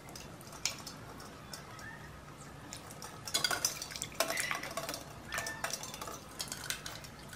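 Duck eggs being washed by hand in a stainless steel bowl of water: water sloshing, with scattered knocks and clinks as the eggs and fingers hit the metal bowl, busiest in the middle of the stretch.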